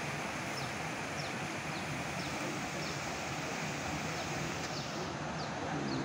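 Steady rushing outdoor noise with a bird repeating a short, high, falling note over and over, roughly every half second.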